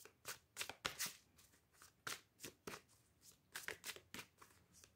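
Tarot cards being shuffled or handled by hand, faint and out of view: soft, irregular clicks and rustles, several a second.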